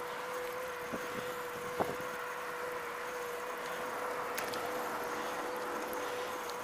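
Electric bike motor whining steadily at one pitch under tyre and wind noise, with a single sharp click about two seconds in.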